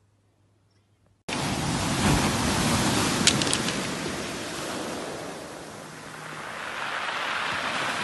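Sea surf on a pebble beach, starting suddenly after about a second of near silence: a wave breaks and washes up the stones, the wash fades off, and the next wave builds near the end. A couple of sharp clicks sound over the wash.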